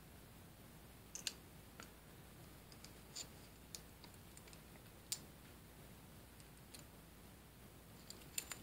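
Small plastic and metal microphone-mount parts clicking and tapping as they are handled and set down on a wooden desk: a few sharp, isolated clicks a second or so apart, with a quick pair near the end, over quiet room tone.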